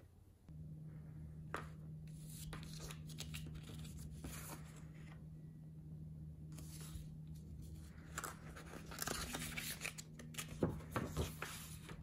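Irregular rustling and crinkling as a paper booklet and plastic pouches are handled, with its busiest, loudest stretch near the end. A steady low hum runs underneath.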